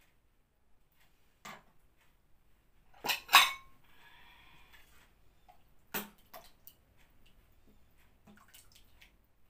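A metal ladle clinking against a stainless steel pot and ceramic soup bowls as soup is served, with two louder clinks close together about three seconds in. Soup is then poured softly from the ladle into a bowl, and a few more light clinks follow.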